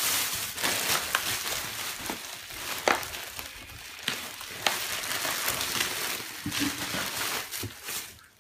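Crinkly plastic packaging and insulated liner rustling and crackling as a meal-kit box is unpacked by hand, with a few sharp crackles.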